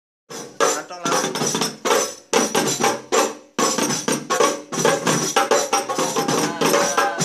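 Hadroh rebana frame drums struck by hand in a quick, busy rhythm, starting a moment in, with two short breaks a little over two and three and a half seconds in.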